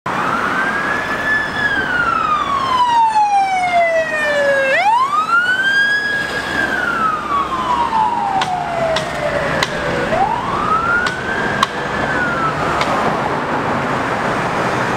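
Emergency vehicle siren in wail mode on a State Parks lifeguard truck responding code 3: a tone that sweeps up quickly and falls slowly, about three times, over traffic noise.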